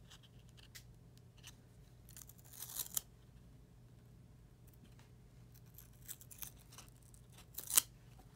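A stack of Topps Chrome trading cards being handled, the slick cards slid one by one across each other with soft swishes and light clicks, and one sharper snap near the end.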